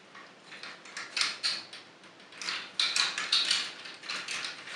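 Hard plastic parts of a small transforming toy robot clicking and rattling as they are handled and its pegged wheel joints are worked, in two bunches of light clicks.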